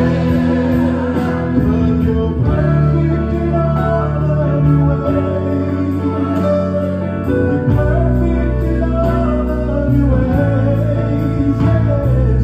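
Gospel song: a sung melody over long held bass notes and accompanying instruments, playing without a break.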